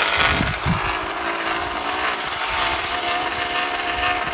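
Small plastic bottle fixed to a bicycle frame and pressed against the turning tyre, making a steady rasping buzz that imitates a motorbike engine.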